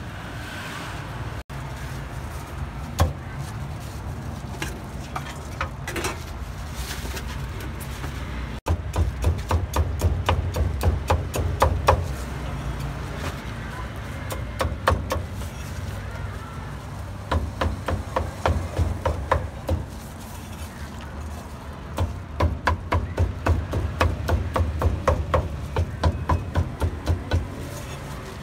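A cleaver chopping roast meat on a wooden block in runs of quick, even strokes, several a second, with short pauses between runs. The first run starts about a third of the way in.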